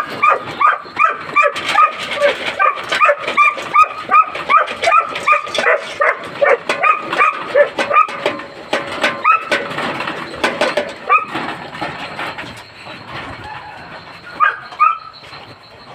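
Huskies barking and yipping in quick succession, about two short high calls a second: the excited clamour of kennel dogs at feeding time. The calls thin out after about eleven seconds, with a few last yips near the end.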